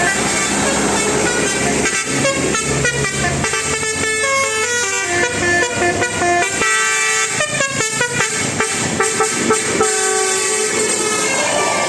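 Indonesian bus 'telolet' musical horn with a Basuri melody module, playing a tune in stepped horn notes, with a quicker run of short notes about two-thirds of the way through.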